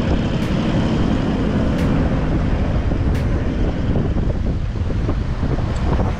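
Wind buffeting the microphone over a four-wheel drive's engine running steadily, with a few faint clicks.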